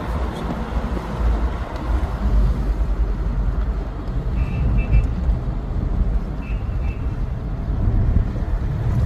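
Steady low rumble of a motor vehicle or road traffic, with two short groups of high beeps about halfway through.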